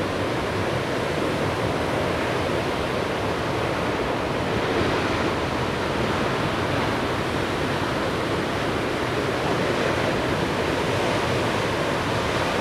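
Steady, even noise of ocean surf breaking, with no distinct single crashes.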